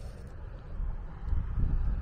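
Wind buffeting the microphone as a low, gusty rumble, with louder gusts in the second half.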